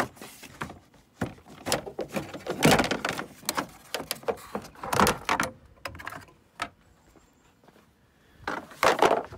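Plastic under-hood trim panel of a Tesla Model S being worked loose by hand: a run of clicks, knocks and plastic scrapes as its clips let go, with a louder scrape and clatter near the end as the panel is set down on the pavement.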